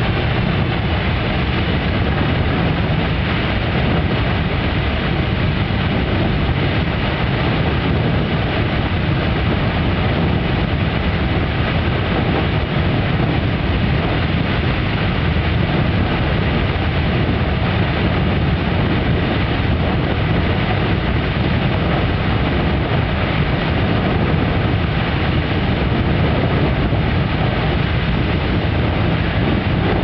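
Beehive Geyser erupting: water and steam jetting from its cone with a loud, steady rushing noise that stays even throughout.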